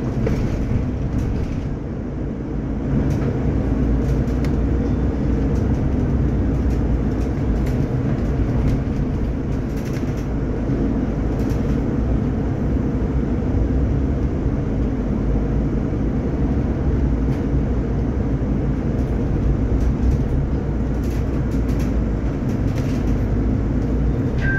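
Solaris Urbino 12 IV Hybrid city bus driving, heard from inside near the front: a steady low drivetrain rumble and road noise with faint rattles, getting louder about three seconds in.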